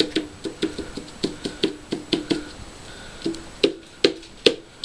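A green toy bat bonking repeatedly on a boy's head: short hollow knocks, about three to four a second, with a brief pause about three seconds in and harder hits near the end.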